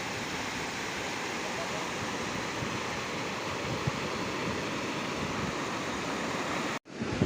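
Sea surf washing steadily on a beach, heard as an even rushing noise, which cuts off abruptly near the end.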